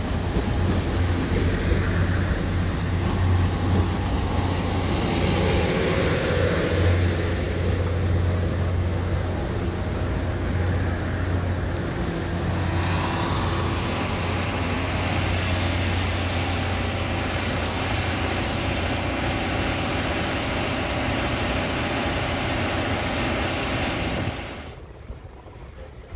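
Taiwan Railway Tze-Chiang diesel multiple unit running past close by: a steady low diesel engine drone under the rumble of its wheels on the rails, with a brief high hiss about two-thirds of the way through. The sound drops away sharply about two seconds before the end, leaving quieter station ambience.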